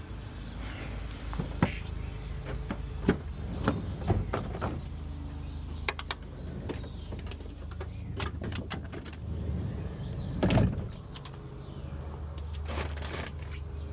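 A steady low hum with scattered sharp clicks and knocks over it, the strongest knock about ten and a half seconds in.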